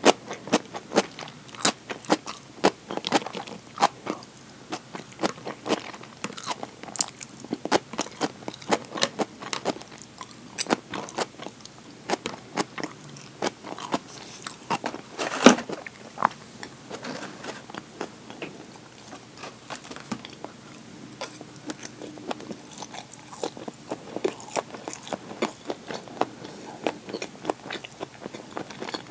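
Close-miked chewing and biting of crunchy deli food: a steady run of crunches and wet mouth clicks, several a second. About halfway through there is one sharper, louder clack, as a clear plastic food container is handled.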